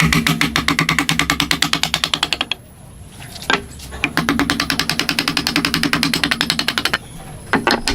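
A power tool running with a fast, even rattle of about a dozen strokes a second. It runs in two spells, stopping for about a second and a half in the middle, with a sharp click in the gap and two more near the end.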